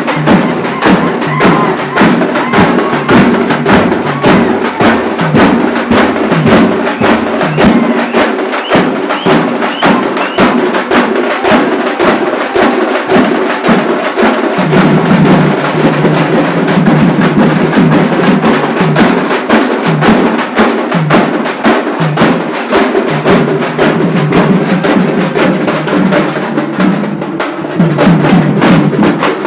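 Festival drums beaten in a fast, dense, unbroken rhythm, many strokes a second, easing briefly near the end before picking up again.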